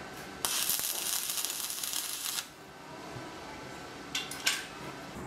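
Stick (arc) welding: the electrode's arc crackling steadily for about two seconds as a steel hub is tack-welded onto a bicycle chain sprocket, then stopping. About four seconds in, the arc is struck again for two short crackles.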